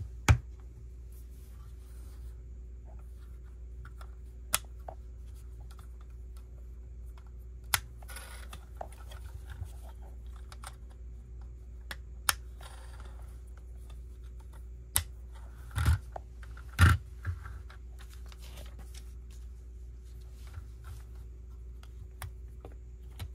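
Plastic Lego bricks being handled and pressed together: sharp separate clicks at uneven intervals, the loudest clustered about two-thirds of the way through, with brief soft rustles of pieces being handled, over a steady faint hum.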